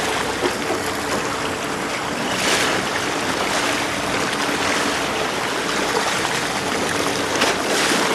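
Fishing boat on the open sea: a steady rush of water and wind noise, with a faint steady engine hum underneath.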